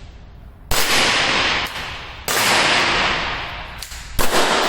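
Umarex .50 calibre CO2 air pistol fired three times, about one and a half to two seconds apart. Each shot is a sharp crack with a long fading tail.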